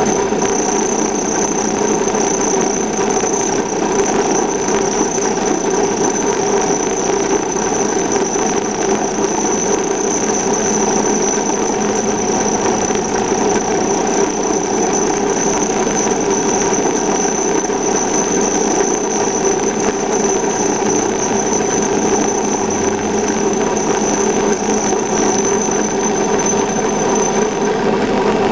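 Myford lathe running with a milling cutter in its chuck, taking a light finishing cut across a steel plate. The cutter gives a steady high-pitched squeal that stops shortly before the end.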